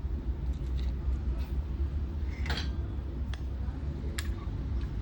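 A few sharp small clicks and taps from handling tools on a circuit board, the loudest about halfway through, over a steady low background rumble.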